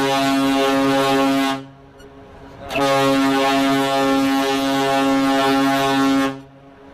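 Cunard liner's horn sounding long blasts, several notes at once in a deep chord. One blast cuts off about a second and a half in, and after a short break a second blast of about three and a half seconds follows.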